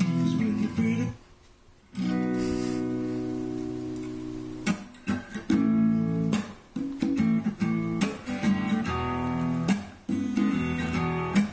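Acoustic guitar playing strummed chords. There is a short break about a second in, then one long ringing chord that fades away, then quicker strummed chords.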